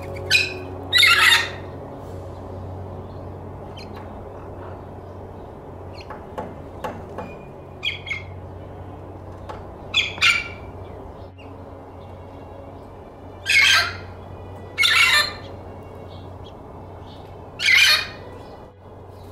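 Lilac-crowned Amazon parrot squawking: loud harsh calls in short groups, two about a second in, a pair around ten seconds, and three longer ones near the end, with a few softer short calls in between.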